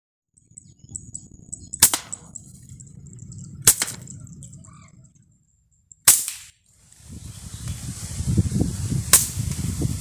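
Four sharp cracks of a scoped air rifle being fired, spaced about two seconds apart, over a low rumbling noise.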